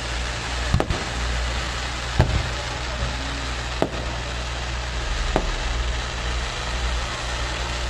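Fireworks shells bursting in the air: four sharp bangs about a second and a half apart over a steady rumbling noise.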